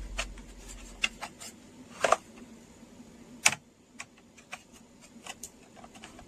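Small clicks and taps of a 2.5-inch SSD being handled and fitted into a laptop's hard drive bay, with two louder knocks about two and three and a half seconds in.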